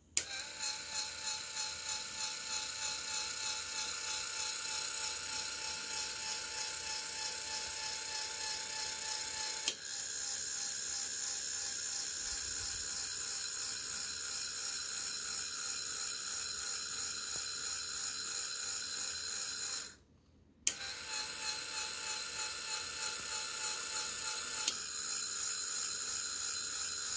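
Electric linear actuator's geared DC motor running with a steady high whine as its rod extends and retracts. About two-thirds of the way through it stops for under a second, then runs again. A sharp click sounds twice while it runs.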